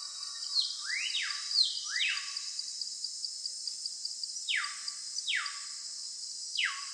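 Jungle ambience: a steady high insect drone with fast, even ticking, and a bird giving a series of steeply falling whistled calls, the first few swooping upward before they drop.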